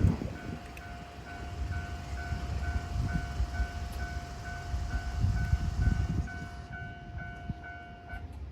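Level crossing warning bell ringing, a repeated electronic ding about twice a second over a steady tone, stopping shortly before the end. Underneath, the low rumble of a departing KiHa 47 diesel railcar set fades away.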